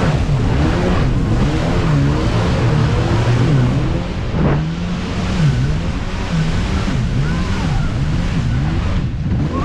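Jet ski engine running at speed, its pitch dipping and climbing again and again as the throttle is worked through turns. A steady rush of water spray runs under it.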